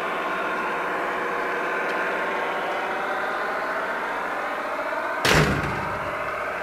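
Garden-railway model of a DR class 199.8 narrow-gauge diesel locomotive running past with a steady humming drone made of several tones. About five seconds in there is a short, loud bang.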